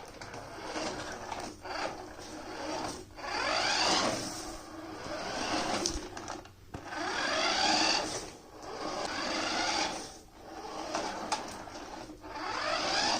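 Small electric drive motor of a remote-control toy Land Cruiser whining in repeated bursts with brief dips between them. Several bursts rise in pitch as the motor speeds up.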